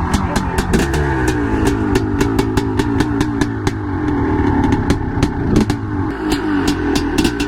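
1989 Honda CR500R's 500cc two-stroke single-cylinder engine running and being revved, its pitch rising and falling as it warms up on the choke after the rebuild. A steady rapid clicking, about four a second, runs over it.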